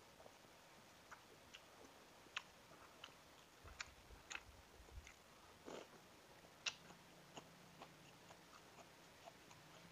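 Faint close-up eating sounds: scattered wet mouth clicks and chewing, with a few sharper clicks of a metal utensil against the dishes. The sharpest click comes about two-thirds of the way through.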